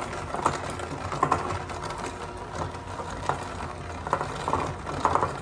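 Electric hand mixer running steadily, its beaters whipping a thick chocolate frosting of confectioners' sugar, cocoa, butter and milk in a glass bowl, with a few short sharp knocks along the way.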